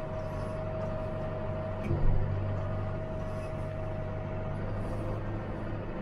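John Deere tractor running steadily, heard from inside the cab, with a constant whine over the engine hum. There is a single thump about two seconds in.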